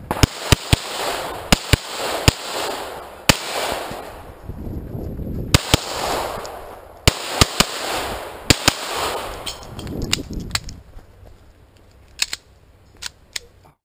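Semi-automatic pistol firing shots mostly in quick pairs and triplets, about eighteen over ten seconds, each shot trailing off. Firing stops about ten seconds in, and a few faint clicks follow near the end.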